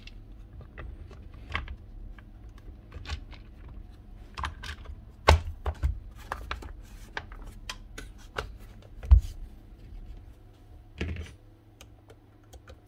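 Plastic housing halves of a Milwaukee M18 crown stapler being handled and pressed together: a run of scattered clicks and knocks, the loudest about five and nine seconds in. It ends with fainter ticks as a screwdriver begins on the housing screws.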